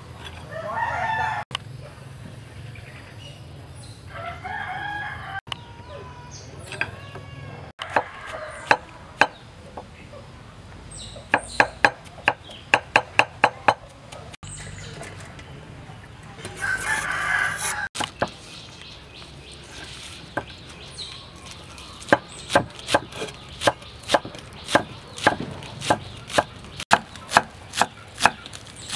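A cleaver chops on a wooden board, dicing eggplant and then green onions, in quick runs of sharp knocks, about three a second in a short run near the middle and about two a second over the last several seconds. A rooster crows several times in between.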